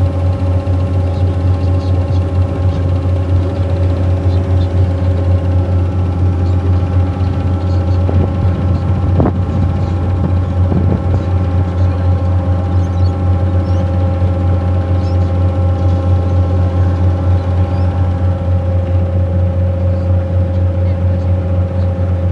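River cruise boat's engine running steadily under way: a loud, constant low hum with several steady higher tones over it.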